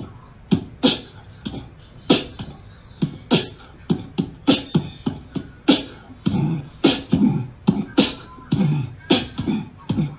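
Beatbox-style rhythmic percussion: sharp clicks and snare-like hits, two or three a second at an uneven beat, joined by deeper humming bass notes from about six seconds in.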